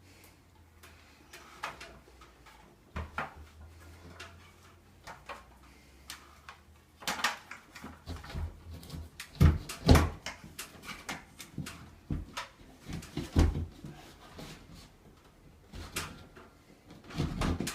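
Irregular clicks, knocks and handling noises of a slim LED ceiling light being pushed and clipped into its cut-out in a plasterboard ceiling, the heaviest knocks coming about halfway through and near the end.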